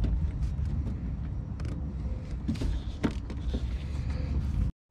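Plastic headlight bulb connector and its wiring being handled and pushed into place, a scatter of small clicks and taps over a steady low rumble.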